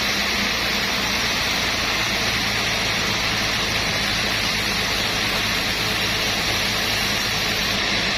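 Sawmill machinery running steadily: a constant engine hum under an even, hissing machine noise, with no breaks or cuts in the sound.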